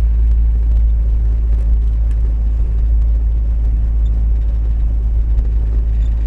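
Car driving over a snow-covered road, heard from inside the cabin: a steady, deep rumble of engine and tyres.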